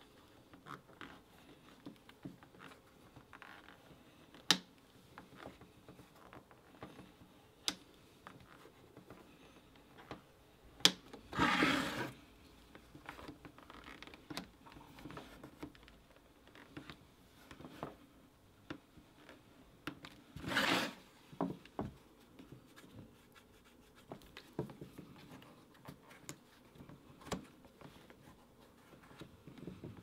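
A hand tool rubbing and pressing over damp, wet-molded leather, with quiet scraping and scattered sharp clicks. Two louder scraping strokes come about 11 and 20 seconds in.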